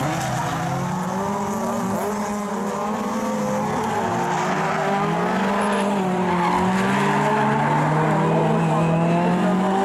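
Several rallycross cars' engines running hard on the circuit, their pitches rising and falling over one another as they rev through the gears.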